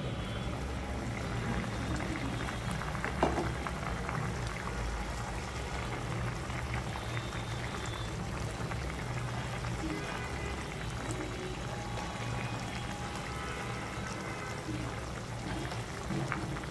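Potato curry simmering in a pan, thick sauce bubbling and popping steadily, with a single knock about three seconds in.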